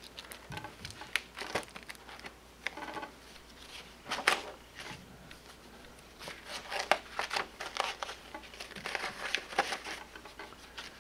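Rustling and crinkling of plastic-sleeved stamp album pages being handled and turned in a ring binder, with irregular sharp crackles, the loudest about four seconds in.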